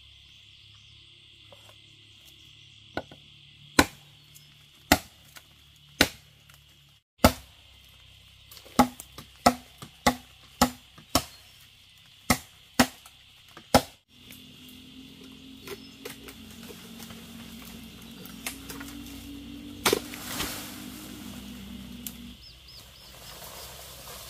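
A blade chopping into bamboo or wood: about a dozen sharp strikes, several with a short hollow ring, coming roughly one a second for about ten seconds. A steady high insect drone runs underneath.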